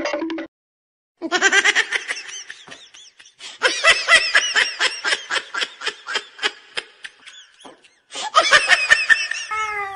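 A person laughing hard in long runs of quick, high-pitched laughs, with a short break near the end. Just before the end a cat's yowl begins, sliding down in pitch.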